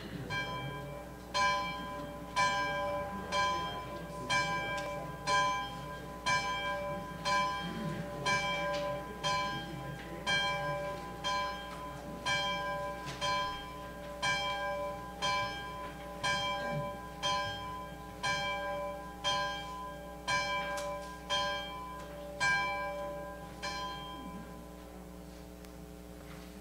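A single church bell tolling, struck about once a second, its strokes stopping near the end and the ring fading away: the bell rung to open a church service.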